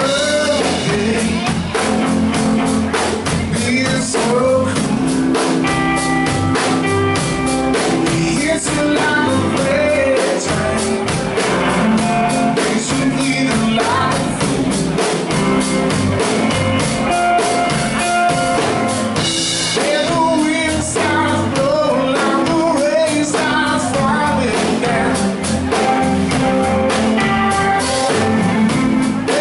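Live blues-rock band playing. A male singer sings over electric guitar, bass and a drum kit keeping a steady beat.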